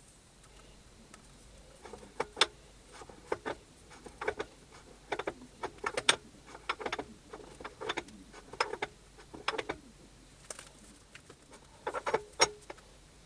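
Irregular metal clicks and clinks of a large magnetic indicator stand being handled, its base set onto the machine and its arm positioned. The taps come singly and in small clusters, some with a brief ring.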